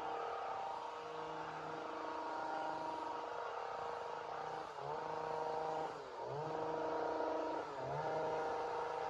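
Two-stroke chainsaw running at high revs. Its pitch dips sharply and recovers three times, about a second and a half apart, near the middle and toward the end.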